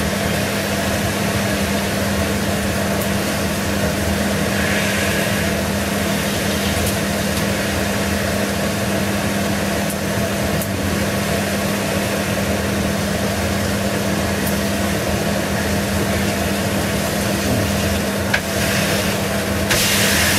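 Steak sizzling in a griddle pan, a steady frying hiss over a constant low hum, briefly brighter about five seconds in and louder again near the end.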